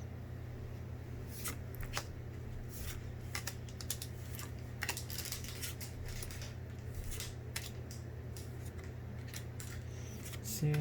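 A Pokémon trading card booster pack being opened and its cards handled: scattered crinkles, snips and rustles of the foil wrapper and cards, over a steady low hum.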